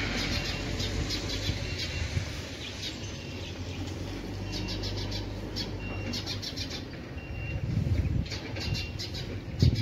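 Small birds chirping in short repeated calls over a low steady hum that fades about two thirds of the way in; gusts of wind buffet the microphone near the end.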